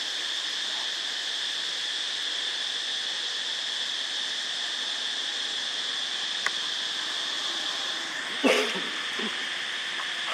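Steady high-pitched insect chorus, crickets or similar, running without a break. About eight and a half seconds in comes a single short, loud call that falls in pitch.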